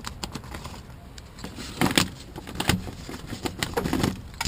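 Hand work inside an opened car door: scattered clicks, rustling and light metallic clinks as the plastic moisture barrier is peeled back.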